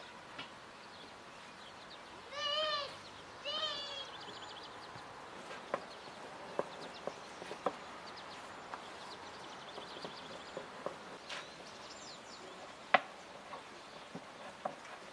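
Rolling out dough outdoors: a wooden rolling pin knocks and taps on a wooden table, with one sharper knock near the end. About two seconds in, an animal gives two short, pitched calls, and small birds chirp faintly in the background.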